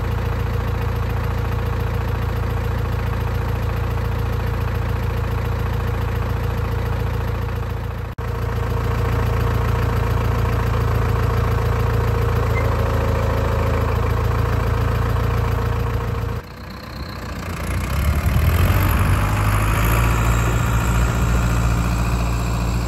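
Case IH 845XL tractor's diesel engine idling steadily. About two thirds of the way in, the sound breaks off briefly, then the engine speeds up and grows louder as the tractor moves off.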